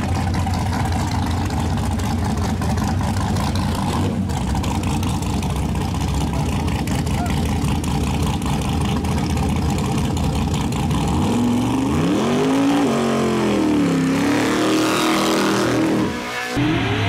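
Fourth-generation Chevrolet Camaro drag car's engine running at a steady idle, then revved up and down several times over the last few seconds during a burnout.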